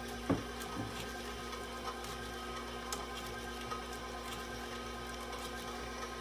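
KitchenAid stand mixer motor running steadily on low speed, its beater turning through a stiff butter-and-sugar frosting. There is one light knock near the start and a few faint ticks.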